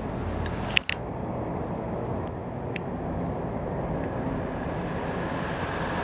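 Steady hum of distant town traffic, with a few short sharp clicks: one just under a second in and two more near the middle.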